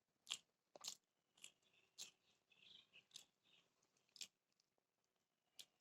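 Close-up mouth sounds of someone chewing beef biryani: soft, irregularly spaced smacks and clicks, roughly one every half second to second.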